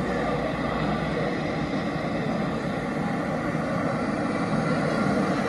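Steady city street noise at night, mostly traffic: a constant, even wash of vehicle sound with no single event standing out.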